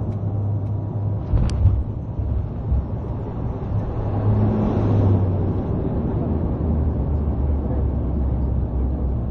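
Cabin noise of a Bombardier Q400's Pratt & Whitney PW150A turboprop and six-blade propeller during the landing rollout: a steady low propeller drone over a broad runway rumble. It swells about four to five seconds in, then drops in pitch.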